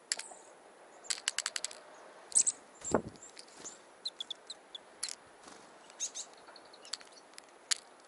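Small wild birds, a Eurasian nuthatch and a varied tit, feeding from a hand-held metal cup of seed: quick runs of sharp clicks and taps as beaks peck at the seed and the tin, with a low thump about three seconds in and a few short high chirps around four seconds in.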